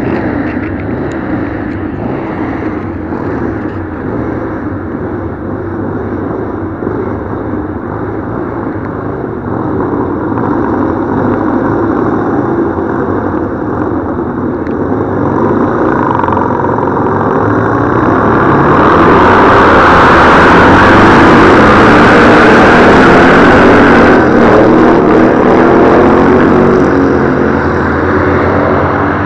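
Racing motorcycle engines running, growing louder past the middle and easing off near the end.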